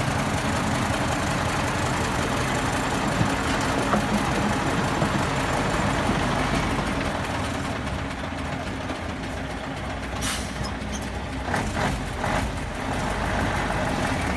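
Dump truck's diesel engine running steadily while the truck's tipper body is raised, with a few short knocks toward the end.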